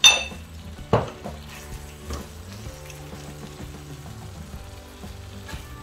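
Chili-and-tomato pesmol sauce sizzling in a stainless steel wok as it is stirred, with a sharp ringing metal clink at the start and a knock about a second in. Soft background music runs underneath.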